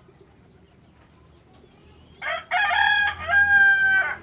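A rooster crowing once: a loud call about two seconds long, starting about halfway in, over faint high chirps of small birds.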